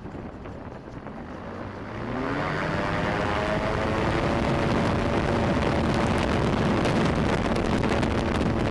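Magni M16 gyroplane's engine and pusher propeller, heard from the open cockpit: running low for about two seconds, then opened up to full power with a rising pitch for the takeoff run, and holding a steady loud drone. Wind buffets the microphone throughout.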